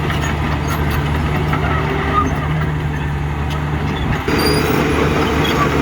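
Heavy diesel engine of earthmoving machinery running steadily, with an abrupt shift in its sound a little past four seconds in.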